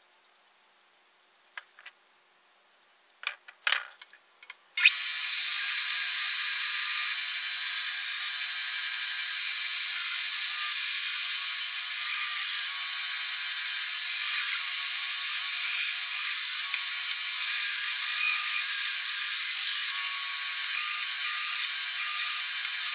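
Benchtop bandsaw running and cutting wood: a steady hiss with a thin high whine that comes in abruptly about five seconds in. Before it, near silence with a few light clicks.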